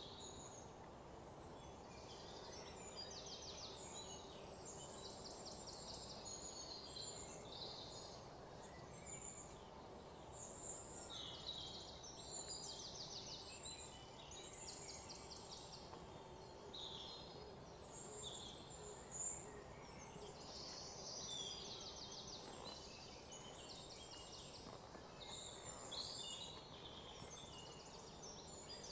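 Faint outdoor ambience of small birds chirping, with many short high chirps and quick rattling trills over a low steady background hum. A single brief sharp click stands out about two-thirds of the way through.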